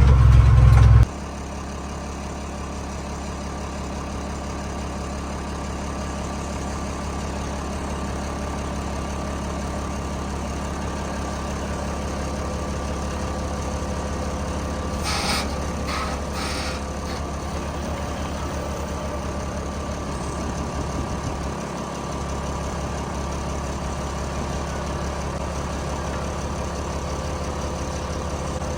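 Heavy diesel vehicle engine running steadily with a deep, even drone. A louder low rumble in the first second drops off abruptly, and a few brief clicks come about halfway through.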